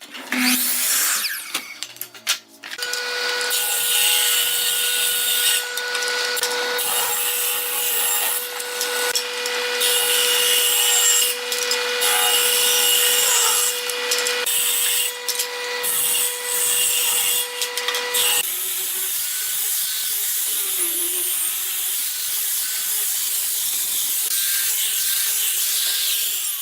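Power tool working wood: a steady motor whine with a hissing, rubbing noise of the work over it. The whine cuts off about two-thirds of the way through while the hissing goes on.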